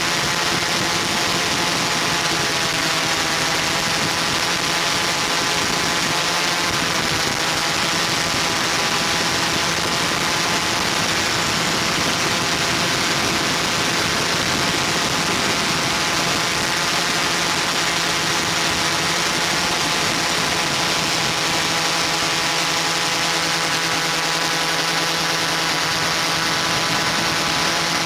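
Multirotor drone's motors and propellers humming steadily, a constant electric whine with many layered tones over airy hiss.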